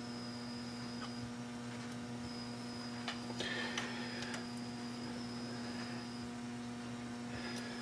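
Steady electrical hum, with a few faint clicks and light taps of tooling being handled about three to four seconds in.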